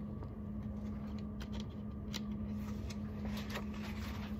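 Pages of a thin paperback picture book being turned and handled: a few soft paper rustles and light clicks over a steady low hum.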